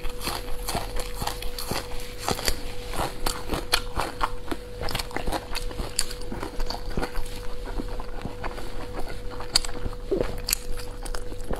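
Close-miked chewing of soft boiled dumplings: a steady run of wet mouth clicks and smacks, over a faint steady hum.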